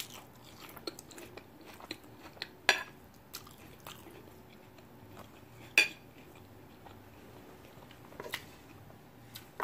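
Quiet close-up eating sounds: chewing salad from a fried tortilla bowl and a metal fork scraping and tapping on the plate. Scattered short clicks stand out, the loudest about three and six seconds in.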